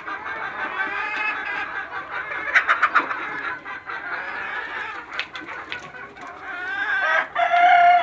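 A flock of chickens clucking continuously, with calls overlapping. Near the end a rooster crows with one long call.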